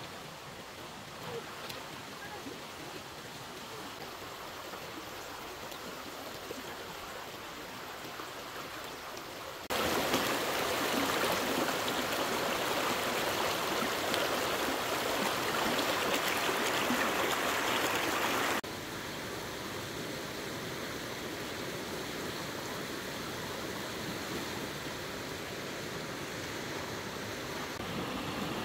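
Fast-flowing stream water rushing in a steady, noisy wash. About ten seconds in it abruptly becomes louder and brighter for some nine seconds, then drops back just as suddenly.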